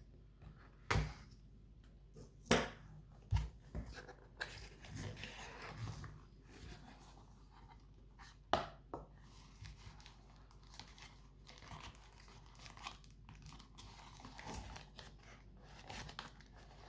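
Unboxing packaging being handled: a cardboard box and its wrapping rustling, crinkling and tearing, with a few sharp clicks or knocks spread through it.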